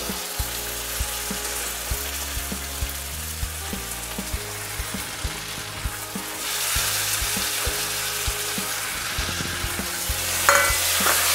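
Mutton pieces frying in hot oil with fried onion, garlic and ginger on a high gas flame, sizzling steadily, with a spatula stirring and scraping the pan. The sizzle gets louder about six and a half seconds in.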